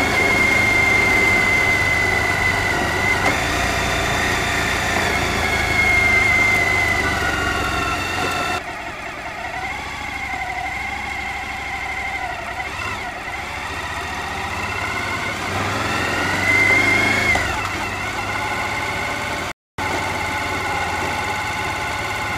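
Suzuki V-Strom DL1000's V-twin engine running under way, its note rising and falling with the throttle and climbing briefly near the end. The level drops suddenly about nine seconds in, and the sound cuts out for an instant shortly before the end.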